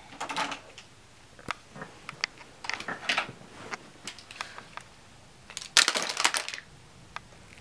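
Plastic makeup cases, lipstick tubes and pencils clicking and rattling in a plastic storage drawer as they are handled, with a louder burst of rattling about six seconds in as the makeup spills out onto the floor.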